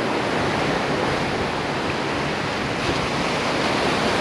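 Gulf surf breaking and washing up a sandy beach: a steady rush of waves.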